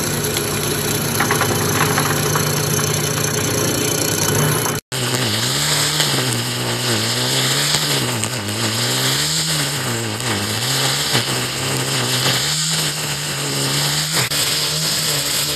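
An electric vegetable slicing machine runs with a steady hum as its rotating blade slices a green vegetable into rounds. About five seconds in, the sound drops out for an instant. A handheld brush cutter's engine then takes over, its pitch rising and falling as the spinning head cuts weeds down to bare dirt.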